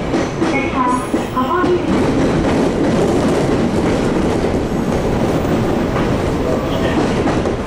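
Three-car JR Kyushu electric train running along the track, heard from inside the front car behind the cab: steady running noise of wheels on rail.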